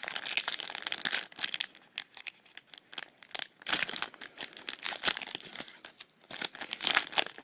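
Wrapper of a baseball trading-card pack crinkling and tearing as it is ripped open by hand, in irregular crackly bursts with a short pause near the end.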